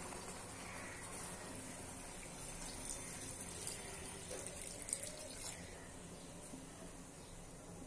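Thin taro-stolon curry simmering in a pan and stirred with a wooden spatula: faint liquid sloshing and bubbling, with a few light clicks of the spatula against the pan in the middle.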